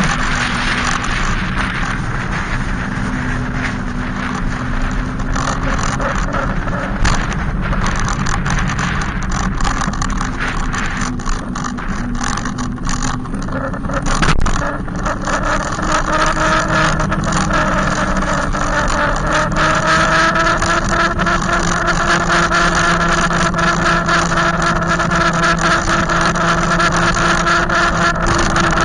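Loud motor hum of an e-bike riding close behind, over a steady rushing noise. About halfway through its pitch rises a little, then holds steady and grows stronger.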